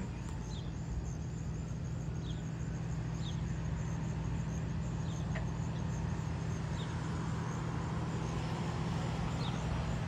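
Car engine idling with a steady low hum. Over it, a short high chirp repeats every second or so, which the filmer takes for a frog calling.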